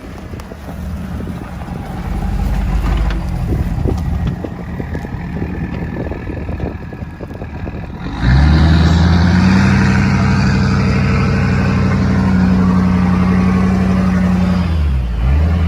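Ford F-350 pickup engine revving while the truck is driven hard. About eight seconds in, it jumps to a loud, steady high-rev note with a rushing noise over it, held for about seven seconds, then the revs fall away near the end.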